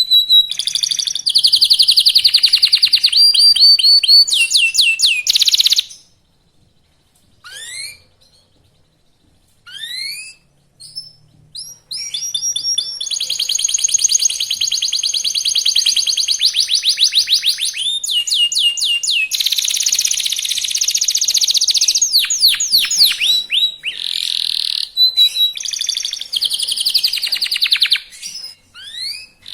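Young local domestic canary singing fast, with long rapid trills (rolls) and upward-sweeping notes. The song breaks off for a few seconds about a fifth of the way in, leaving only a few isolated rising calls, then resumes in long unbroken rolls.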